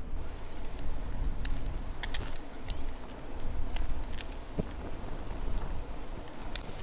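Wood campfire crackling, with about ten irregular sharp pops clustered in the middle, over a low wind rumble on the microphone.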